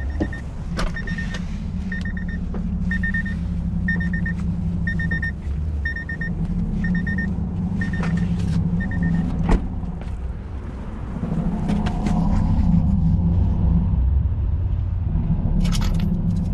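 A car's door-open warning chime beeps about once a second and stops about nine seconds in, over a steady low vehicle rumble. A few sharp metallic clicks come near the end.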